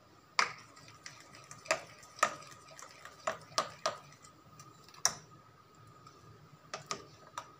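Metal spoon stirring thick gram-flour batter in a steel bowl, clinking against the bowl's side about ten times at irregular intervals.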